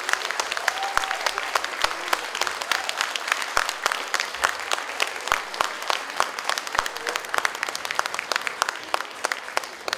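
Audience applauding, the clapping growing sparser near the end.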